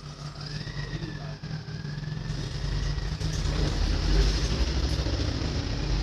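Motor vehicle engine rumble that swells to a peak about four seconds in and then begins to fade, as if passing by, over a steady low hum.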